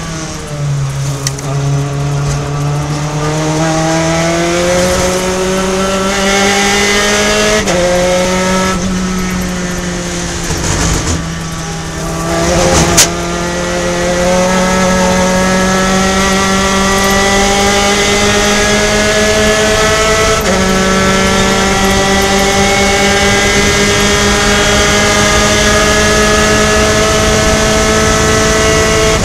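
In-car sound of a Gen3 Spec Racer Ford's engine pulling hard out of a corner, its pitch climbing steadily and dropping sharply at upshifts about 8 and 20 seconds in. A single sharp crack just after the middle is the loudest moment.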